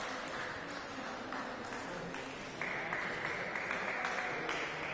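Light, scattered applause and hand claps after a table tennis rally ends.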